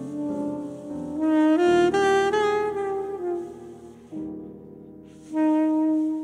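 Soprano saxophone and grand piano playing jazz live: the saxophone climbs in a run of notes and comes back down, then holds one long note near the end over the piano.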